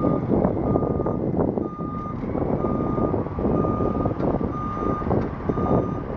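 A construction vehicle's backup alarm beeping about once a second over the heavy, continuous rumble of road-milling machinery.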